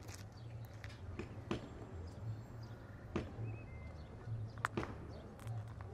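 Outdoor ambience: irregular sharp knocks and clicks over a low rumble, with one short faint chirp just past halfway.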